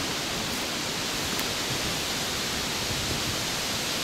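Steady, even hiss of outdoor background noise, with no distinct knocks, voices or tones.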